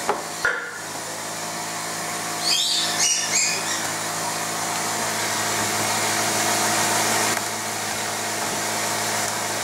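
A workshop machine running with a steady whir and hum. Over it come three short squeaks, about two and a half to three and a half seconds in, as the flexible cast polyurethane armour piece is handled.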